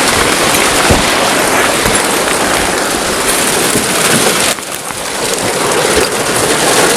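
Heavy hail pelting down, a dense steady clatter of hailstones striking hard surfaces, with a brief dip in level about four and a half seconds in.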